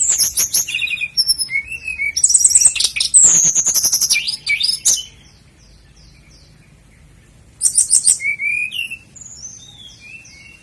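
Sikatan londo, a flycatcher kept as a songbird, singing loud, high-pitched bursts of fast rattling notes mixed with quick sweeping whistles, breaking off about halfway, then another short burst and softer repeated down-slurred notes near the end.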